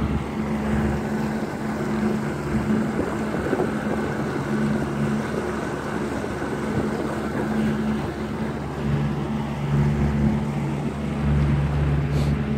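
Bass boat's outboard motor running steadily, a low hum.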